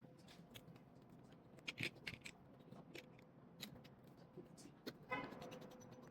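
Near silence with a few faint clicks and taps of small tools handled on a phone during screen removal, and a brief pitched squeak about five seconds in.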